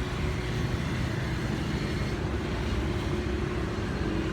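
Steady low rumble of a running vehicle, with a faint hum.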